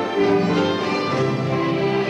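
Orchestral music with violins carrying the melody over a string section.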